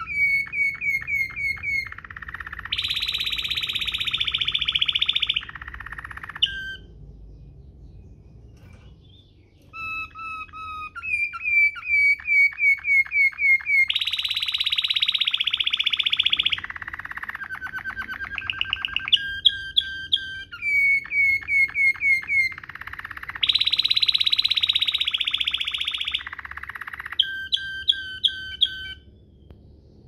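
Domestic canary singing a rolling song in the Waterslager style: runs of quickly repeated notes that lead into long, dense buzzing rolls, three phrases in all, with a short pause about a quarter of the way in.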